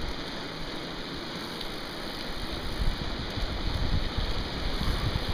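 Rushing noise of riding: wind buffeting the microphone and mountain-bike tyres rolling on tarmac, with the low gusty rumble growing stronger in the second half.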